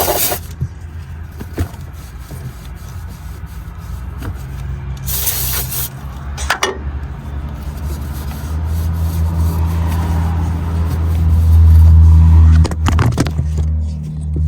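Two short hissing sprays from an aerosol can of cleaner, one at the start and one about five seconds in. A low drone grows louder through the second half and is the loudest sound near the end, dropping off about a second before the end.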